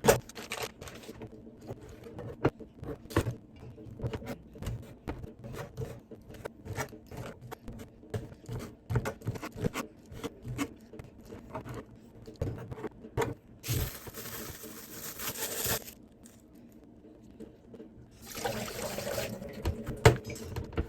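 Kitchen handling sounds: repeated light clicks, knocks and scrapes of utensils and dishes. Twice, about two-thirds of the way in and again near the end, a rushing hiss of running water comes on for about two seconds and stops abruptly.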